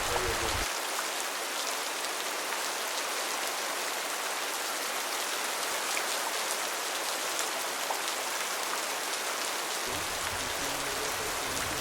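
Steady rain, an even hiss dotted with faint ticks of drops.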